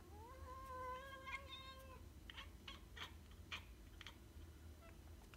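Domestic cat giving one long, drawn-out meow that ends abruptly after about two seconds, followed by a quick run of about six short chirps: the chattering a cat makes at prey it watches but cannot reach.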